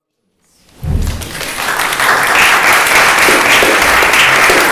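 Audience applauding, a dense steady clapping that starts about a second in.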